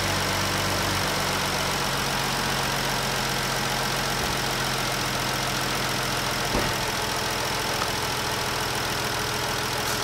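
2014 Jeep's V6 engine idling steadily with a new number 5 fuel injector fitted, being retested for the cylinder 5 misfire. A single short click about two-thirds of the way through.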